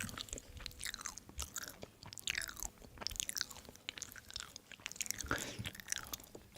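Close-up chewing of soft, sticky food, with irregular wet mouth clicks and smacks.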